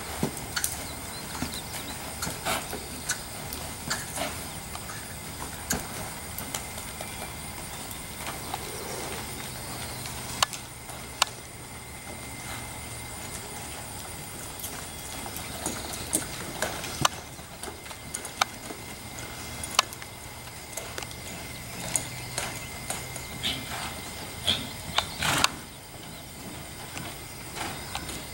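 A ridden horse's hooves on soft arena dirt, making irregular dull thuds and clicks as the mare is worked around the pen.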